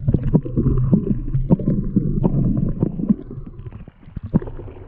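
Muffled underwater sound of a camera held beneath the surface of a shallow pond: a low, dense water rumble and sloshing with many sharp knocks and clicks, easing off in the last second or so.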